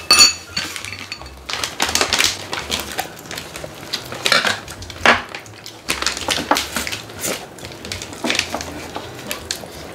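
Close crunching of crispy fried chicken being torn apart and eaten, with irregular clinks of cutlery and dishes.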